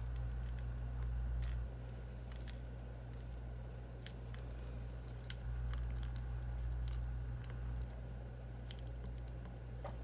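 Light, irregular clicks and taps of small tools against the plastic and metal parts of a phone during repair, over a steady low hum.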